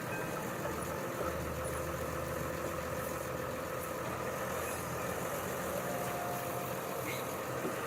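An engine or motor running steadily, a low even hum with a faint steady tone above it.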